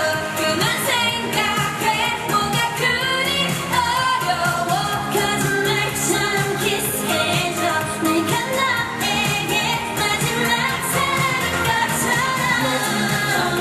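K-pop song playing: a sung vocal line over a full backing track.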